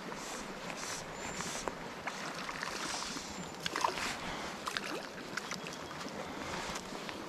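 Brook water running and splashing, with scattered clicks and knocks over the steady rush.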